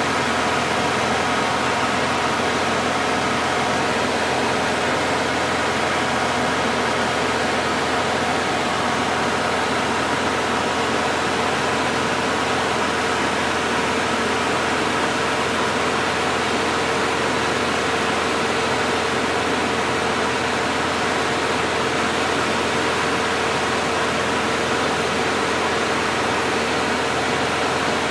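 Cabin noise of a Cessna 177RG Cardinal in flight: its four-cylinder Lycoming engine and propeller running steadily, a drone of several even tones over a constant rush of air.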